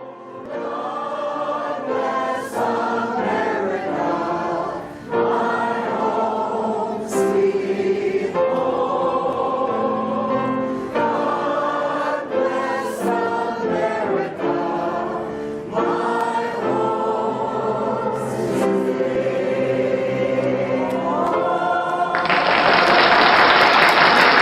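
Choir singing held chords that change every second or two. About 22 seconds in, a loud, even rush of noise takes over and stops abruptly near the end.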